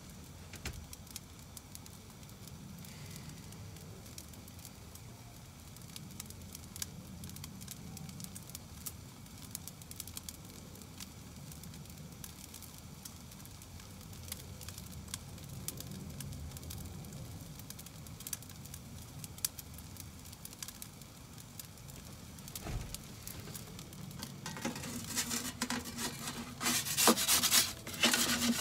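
Roccbox pizza oven's gas burner flame running steadily, with scattered small crackles from the pizza baking on the stone. From about four seconds before the end, louder scraping and clattering as a peel is slid across the oven floor to reach the pizza.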